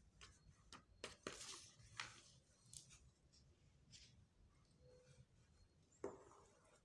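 Near silence with a few faint rustles and taps of a paper strip being handled on a hard floor, the last one, about six seconds in, a little louder.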